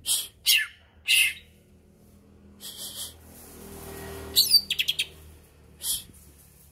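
Green leafbird (cucak ijo) calling: loud, sharp high chirps in the first second or so, a short hissy note about three seconds in, then a quick run of five or so notes sliding down in pitch about four and a half seconds in, and one more chirp near the end. A faint low rumble swells in the background midway.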